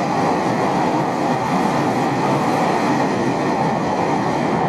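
Electric commuter train pulling out of an underground station platform: a steady rumble of wheels and running gear. The last car clears the platform near the end.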